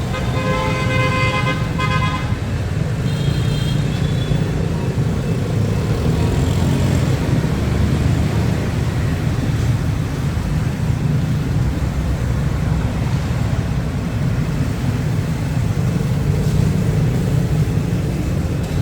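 Road traffic of motorbikes and cars running steadily past, with a vehicle horn sounding for about two seconds at the start and a shorter, higher beep a second later.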